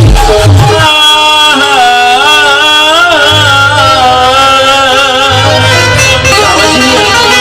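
Qawwali music: a gliding melodic line over a drum beat. The drums drop out about a second in and come back a couple of seconds later.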